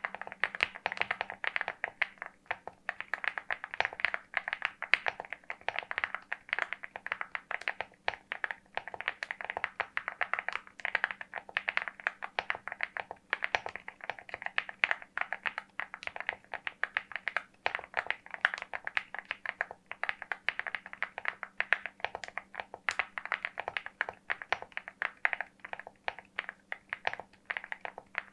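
Fast, continuous typing on a LEOBOG Hi75 aluminium-case 75% mechanical keyboard: a dense stream of keystroke clacks that starts abruptly.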